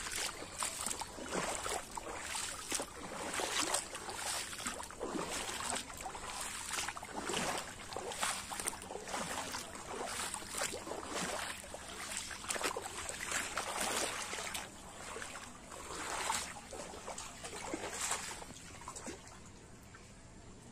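Footsteps wading through shallow floodwater, a slosh and splash with each step, about one a second.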